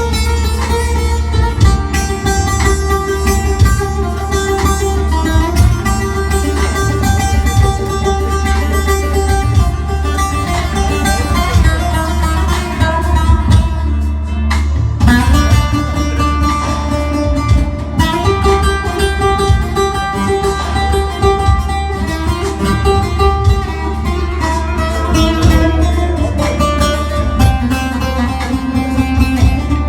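Bağlama (saz), a Turkish long-necked lute, playing an instrumental passage of plucked melody notes over a steady low drone.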